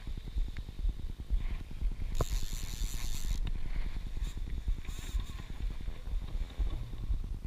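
Wind buffeting the action camera's microphone, an uneven low rumble, with a brief burst of hiss about two seconds in.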